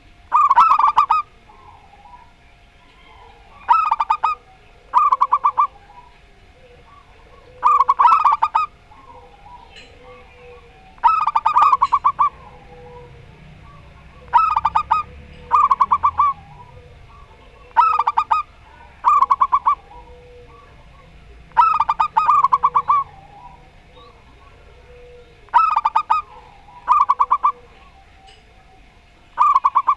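Zebra doves (perkutut) calling back and forth: loud bursts of quick, stuttering coos every couple of seconds, with softer, lower coos in between.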